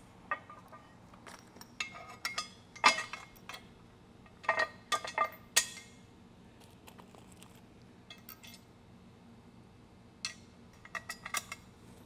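Steel bolts and nut hardware clinking and tapping against a steel rack frame as they are handled and pushed through the bolt holes: scattered sharp metallic clicks in small clusters, with a lull in the middle.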